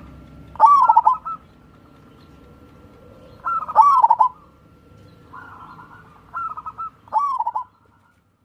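Zebra dove (perkutut) cooing in repeated short, rolling phrases, the loudest about a second and four seconds in, with quicker ones near the end before the sound cuts off suddenly.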